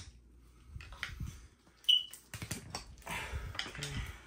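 Metal parts clinking and rattling as a car's short-shifter assembly is handled, with one sharp metallic ping that rings briefly about two seconds in.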